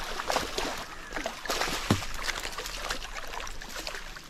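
Water splashing and sloshing against a small boat, with irregular knocks and clicks.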